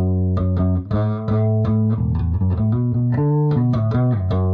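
Background music: plucked guitar over a prominent bass line with a steady rhythm.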